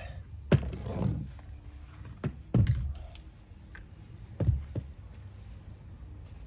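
Knocks and clicks of things being handled and set down on a hard surface, about six in all, the loudest about half a second and two and a half seconds in.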